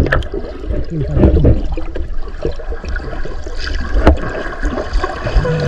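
Water sloshing and splashing over a steady low rumble, with a few sharp clicks.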